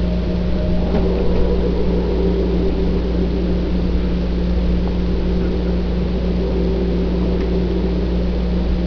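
A steady low mechanical hum and rumble, with faint tones coming and going over it.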